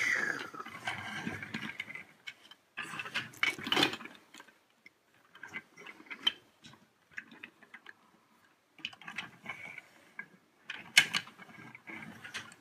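Plastic Lego Duplo toy vehicles being handled and rolled on a tabletop: scattered clicks and knocks of plastic pieces and wheels, busiest about three to four seconds in and again near the end.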